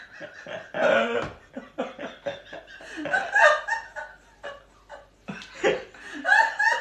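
People laughing in several separate bursts.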